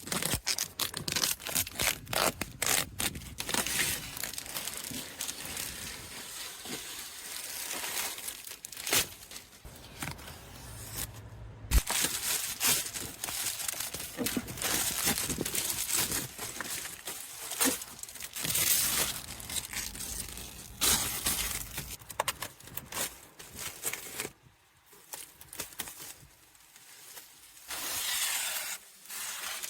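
Protective plastic wrapping being torn off a new car and crumpled, in an irregular run of crackling rips and rustles, quieter for a few seconds near the end before one more burst.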